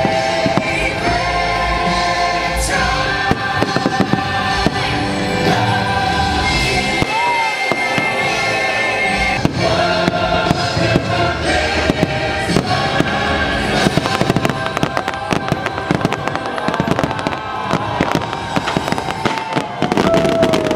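Aerial fireworks bursting and crackling over loud show music with held notes, many sharp bangs throughout, growing thicker toward the end.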